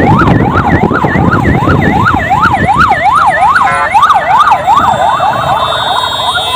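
Ambulance siren on a fast yelp, its pitch sweeping up and down about three times a second, with a brief break in the pattern midway. Vehicle engine and road noise run underneath.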